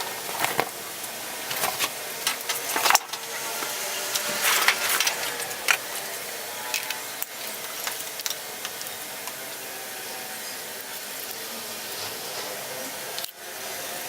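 Scattered clicks and light knocks of small hard parts or tools being handled, with a short scrape about four and a half seconds in, over a steady hiss.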